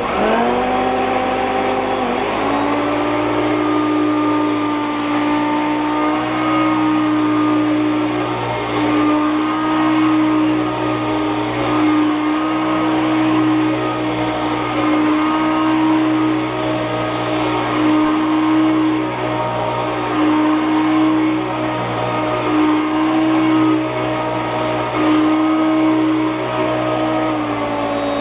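Hoover Concept One upright vacuum cleaner running on its Power Surge setting. The motor spins up, rising in pitch over the first two seconds, then runs steadily with its pitch wavering slightly. It starts to wind down at the very end as it is switched off.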